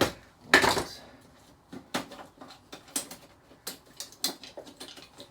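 Small hard metal and plastic parts of a flat-screen TV being handled during dismantling: a brief rattling scrape about half a second in, then scattered light clicks and knocks.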